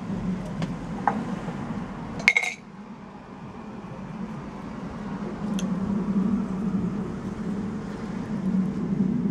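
Low, steady drone of a jet aircraft overhead, dipping after a short, sharp glassy clink about two seconds in, then growing louder again in the second half.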